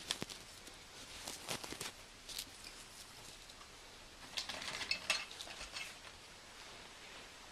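Christmas ornaments being handled and hung on tree branches: light clinks and rustles, with a cluster of small knocks about four to five seconds in.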